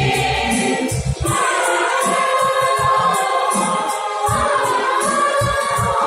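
Music: a choir singing a melodic song over instrumental accompaniment with a steady beat.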